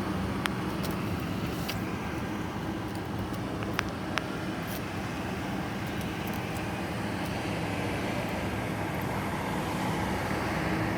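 Gas furnace running with its burners lit: a steady rush with a low hum, and a few sharp ticks in the first half.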